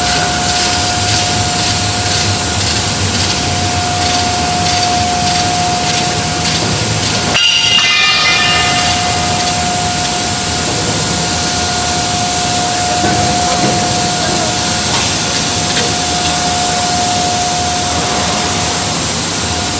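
Tube welding machinery running: a loud, steady hiss with a constant whine, briefly interrupted about seven seconds in.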